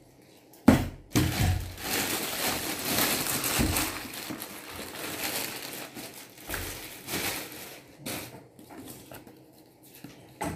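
Clear plastic packing bag crinkling and rustling as a plastic spin mop bucket is pulled out of it. It starts with a sudden loud crackle about a second in and dies down near the end.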